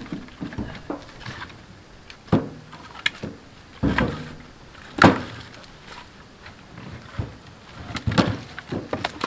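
Split firewood knocking and clunking as pieces are pulled from a loaded cart and set on the stack. The knocks are irregular, with the loudest about five seconds in and a quick cluster near the end.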